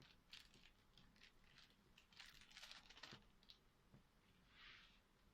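Faint, quick rustles and small ticks of spices being handled and added to the pot, thickest in the middle, with a short soft hiss near the end.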